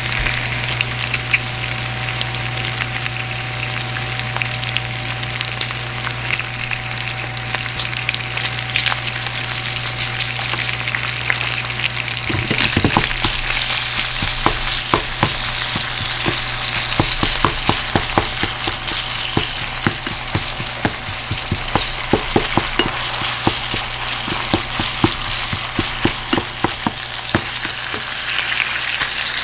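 Minced meat sizzling in oil in a frying pan. From about twelve seconds in, it is broken up and stirred, with many quick clicks and scrapes of chopsticks and a spatula against the pan.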